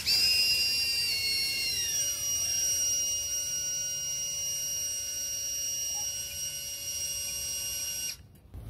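DJI Avata FPV drone's motors and propellers left spinning on the ground after a crash, a steady high whine of several tones; some tones slide lower about two seconds in. The whine cuts off abruptly near the end as the motors are stopped.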